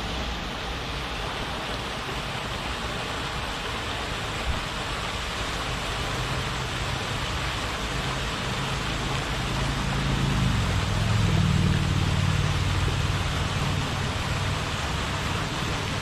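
Steady rushing spray of a multi-jet lake fountain, its water falling back onto the lake surface. A low engine hum joins it, swelling about ten seconds in and then easing off.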